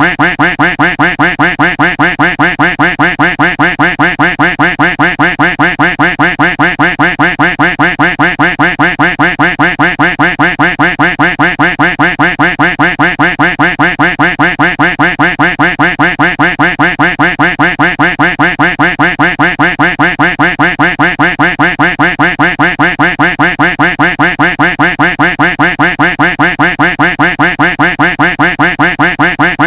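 A duck-quack sound effect looped over and over, identical quacks repeating in a rapid, even rhythm.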